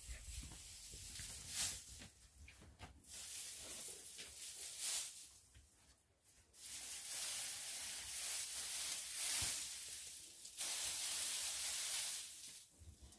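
Hissing, rustling noise in several long stretches of a few seconds each, with short gaps between them and the loudest stretch near the end.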